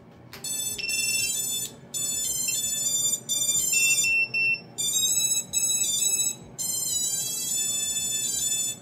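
Xing2 brushless motors of an FPV quad beeping out a custom Bluejay ESC startup melody as the battery is connected: a tune of high beeping notes in several short phrases, lasting about eight seconds.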